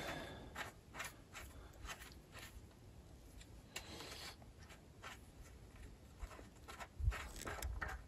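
Faint handling noise of hands working on the wood chipper's small engine: scattered light clicks and rubbing, a short soft hiss about four seconds in, and a couple of dull knocks about seven seconds in.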